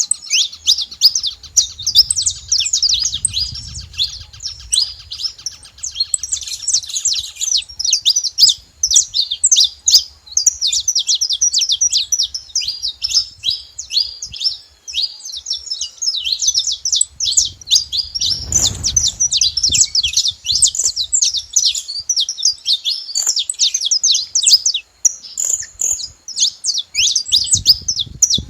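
Saffron finches chirping at a feeding spot: a dense stream of quick, high chirps that overlap without pause. A brief low rumble comes about two-thirds of the way through.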